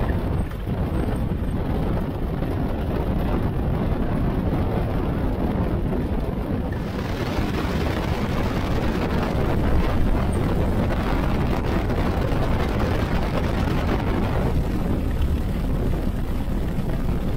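A de Havilland Gipsy Moth biplane's air-cooled four-cylinder Gipsy engine running, heard with heavy wind noise on a camera mounted outside the cockpit while the aircraft rolls over grass. The hiss turns brighter about seven seconds in.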